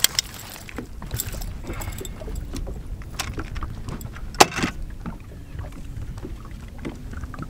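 Low steady rumble of wind and water around a bass boat, with scattered knocks and rattles on the deck as a landing net holding a bass is swung aboard and set down. The loudest is one sharp knock about four and a half seconds in.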